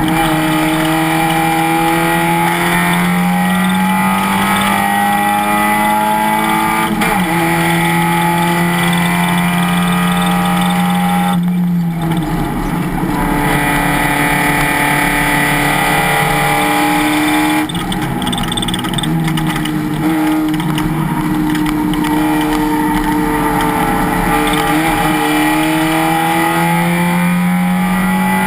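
Race car engine under load at speed, its note slowly climbing with revs and stepping down at changes, with brief lifts off the throttle about twelve and eighteen seconds in.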